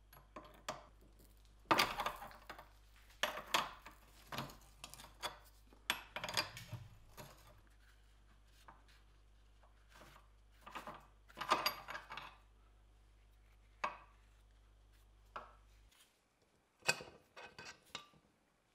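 Irregular clinks and knocks of hand tools and metal parts being handled on a workbench, coming in scattered clusters with short pauses between them.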